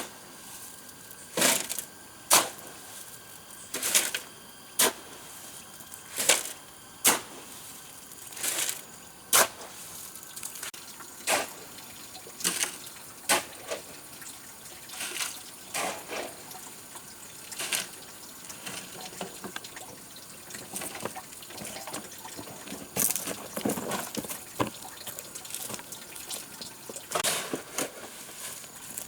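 Sharp knocks at irregular intervals, roughly one every second or so, stronger and more spaced in the first half and softer and more frequent later.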